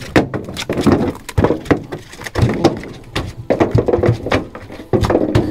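A freshly caught fish thrashing and flopping in the boat, a rapid irregular run of loud knocks and slaps against the hull and gear.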